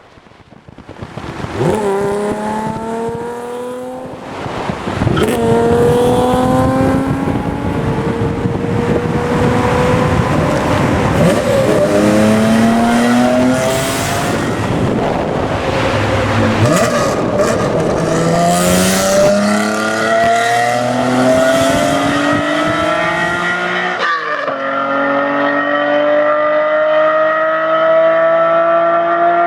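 Nissan Skyline GT-R (KPGC10) S20 straight-six on a Power Craft exhaust, accelerating hard through the gears. The pitch climbs steadily in each gear and drops sharply at about four upshifts a few seconds apart. The sound swells up over the first couple of seconds.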